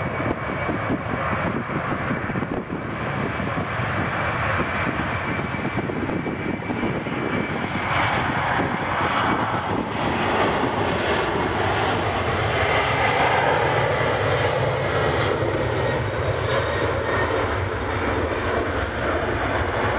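Boeing 747-400's four jet engines at take-off thrust as the airliner accelerates down a wet runway: a loud, steady engine noise with a thin high whine through the middle stretch.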